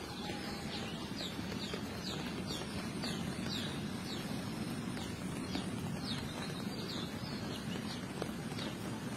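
A bird calling over and over in short high chirps that fall in pitch, about two a second, over a steady low background noise.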